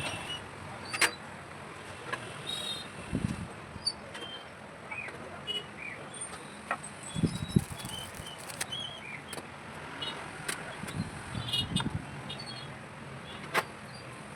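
Scattered small clicks, taps and a few dull knocks of PC hardware being handled and fitted, over a steady hiss.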